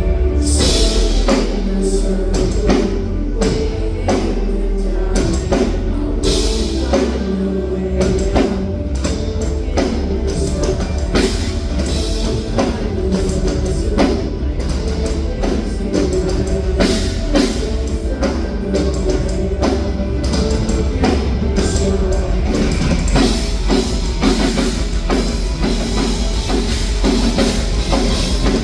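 Rock band playing live, with drum kit, distorted guitars and bass.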